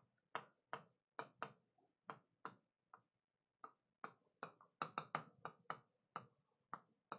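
Stylus tip tapping against an interactive touchscreen display while handwriting: a run of faint, sharp clicks at an irregular pace, with a short pause a little before halfway.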